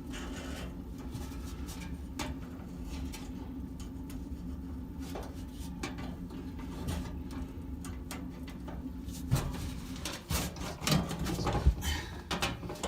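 Small handling noises as the new oven igniter's wires and wire nuts are worked on by hand: scattered light clicks and rattles, growing louder and busier over the last few seconds, over a steady low hum.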